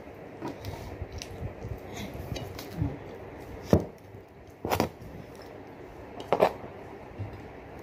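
Close-up eating sounds from someone eating chicken with her fingers: soft chewing and mouth smacks with many small clicks. Three louder, sharp sounds come near four, five and six and a half seconds in, as a small cup is lifted and sipped from.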